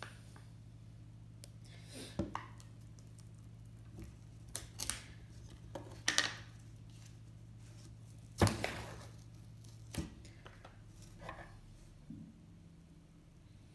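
A cardboard ice cream tub being opened: its lid worked off and its paper seal peeled back, heard as scattered clicks, scrapes and crinkly tearing, loudest about eight seconds in. A low steady hum runs underneath.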